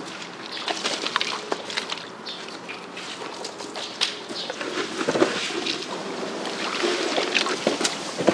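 Wet handling of mullet on an ice-strewn concrete floor as their bellies are slit open: scattered clicks, knocks and wet slaps over a steady hiss.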